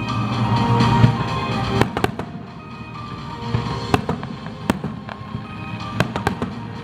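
Fireworks bursting: a string of sharp bangs and crackles at uneven intervals, loudest about a second in, over background music.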